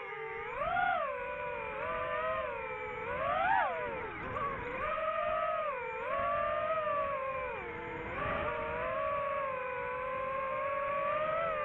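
DJI FPV drone's four motors and propellers whining, the pitch swooping up and down with the throttle: sharp surges about a second in and again around three and a half seconds, a dip near eight seconds, then a steadier hum.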